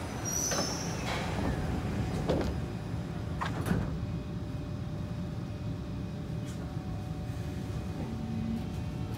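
Kawasaki C151 train's passenger doors sliding shut, with a brief high hiss near the start and knocks about two and three and a half seconds in, over the steady hum of the carriage. Faint steady tones set in from about four seconds as the train prepares to move off.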